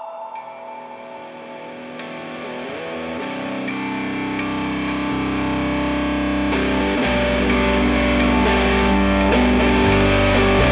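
Background music with distorted electric guitar, starting soft and building steadily louder, with low bass notes coming in about a third of the way through.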